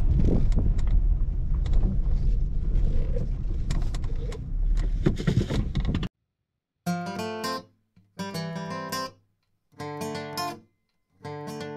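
Music. For about six seconds a loud low rumbling noise runs under musical tones, then it cuts off suddenly. After a short silence, acoustic guitar chords are strummed in separate short bursts with silent gaps between them.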